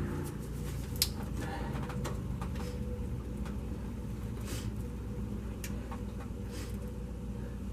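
Light metal clicks and taps as the new EGR pressure feedback sensor is fitted and its nuts are started on the studs, the sharpest about a second in, over a steady low hum.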